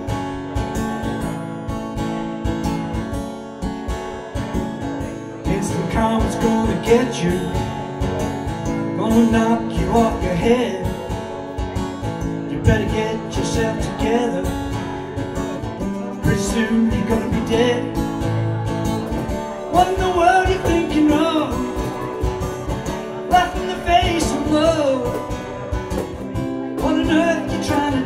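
Acoustic guitar strummed steadily, with a man singing over it from a few seconds in and a cajon played by hand keeping the beat.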